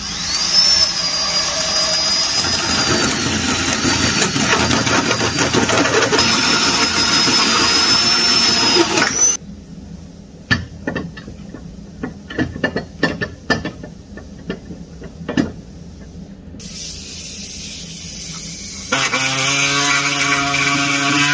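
Cordless drill driving a 57 mm hole saw through the steel chassis rail, a loud cutting noise with a high squeal, for about nine seconds before stopping suddenly. Then scattered clicks and knocks of metal parts being handled, a hiss, and near the end a pneumatic tool on an air hose starting up with a steady buzz.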